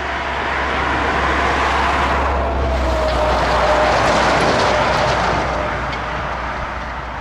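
Airbus A380's four Engine Alliance GP7270 turbofans on final approach: a broad jet roar with a steady whine that sinks slightly in pitch. It grows louder as the aircraft closes in, peaks about four seconds in, then eases.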